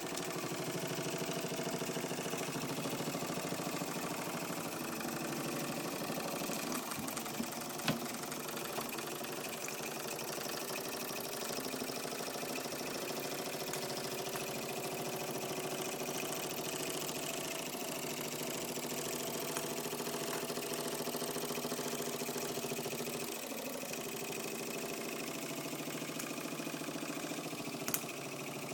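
Mamod SE2 toy steam engine running steadily under steam, driving a Mamod grinder. A couple of sharp clicks cut through, one about eight seconds in and one near the end.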